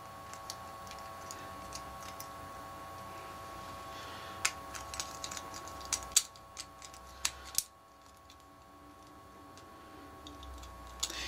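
Scattered light clicks and clatter of hard plastic Beyblade parts being handled, with the loudest clicks about halfway through, over a faint steady hum.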